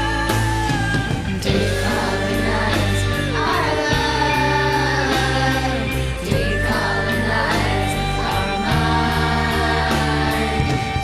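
A rock song playing, with drums, bass and long held melody notes that slide from one pitch to the next, over wordless singing.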